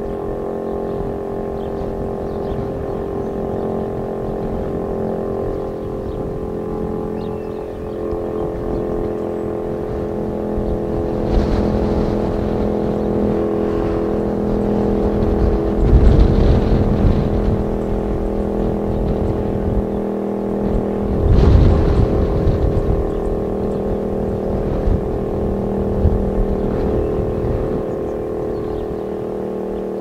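STH-10 outdoor warning siren sounding a steady tone, made of many notes at once and holding one pitch throughout. Low rumbles of noise swell over it about 11, 16 and 21 seconds in.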